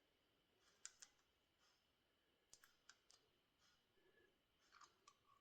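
Near silence broken by a few faint, light clicks and ticks from small steel hydraulic-pump plungers and check valves being handled and set into place.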